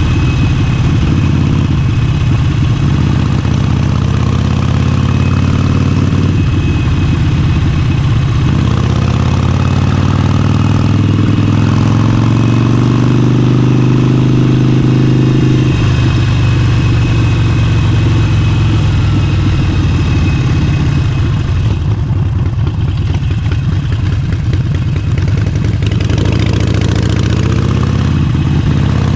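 Harley-Davidson Forty-Eight's 1200 cc air-cooled V-twin running at road speed through an aftermarket exhaust. Its pitch climbs steadily from about a third of the way in, then drops suddenly about halfway through, and changes again near the end.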